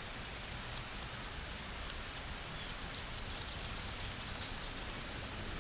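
Steady outdoor hiss with a bird singing a quick run of about eight high, rapid notes about three seconds in.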